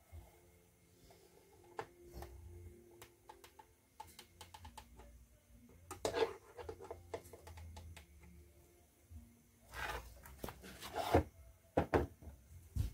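Handling noises: scattered light clicks and taps, with louder rubbing and knocking about six seconds in and again around ten to eleven seconds.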